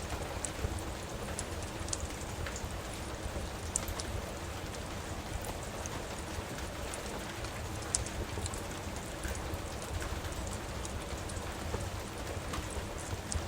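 Steady rain on a surface, with scattered sharp crackles from a wood fire in a fireplace.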